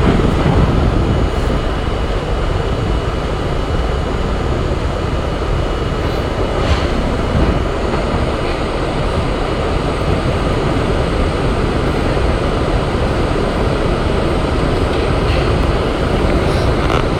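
R32 New York City Subway train running through the tunnel, heard from inside the front car: a steady, loud rumble of wheels on rail and motors, with a faint steady high whine and a few faint clicks.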